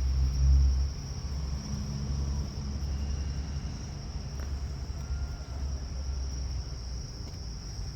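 A steady, high insect drone over a low rumble that is loudest in the first second and then settles.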